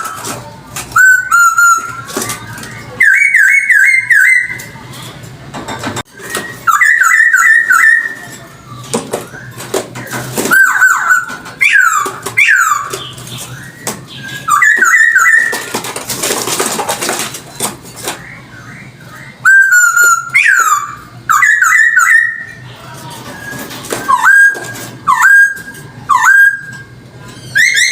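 Poksay hongkong (a laughingthrush) singing loud, clear whistled phrases: runs of quick repeated notes, each sliding up or down, with short pauses between the phrases. About midway there is a stretch of harsh, hiss-like noise, and a faint low hum runs underneath.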